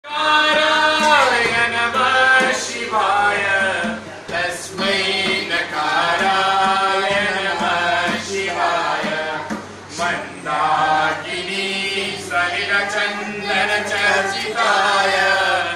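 Hindu devotional hymn chanted by a small group, a man's voice leading and others singing along, with harmonium accompaniment.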